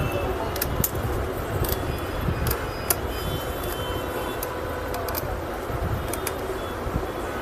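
Scattered small sharp clicks as a Lenovo G570 laptop is taken apart by hand: screws and plastic case parts being handled. Behind them is a steady rumble of road traffic.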